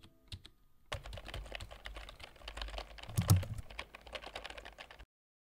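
A few scattered clicks, then a dense run of rapid, irregular clicks and taps, like fast typing on a keyboard, with one louder thump a little past three seconds in. The run cuts off suddenly near the end.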